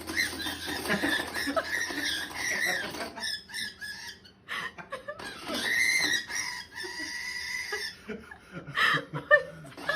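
A pet animal making repeated agitated high-pitched squeaking calls, upset over an object placed in its box.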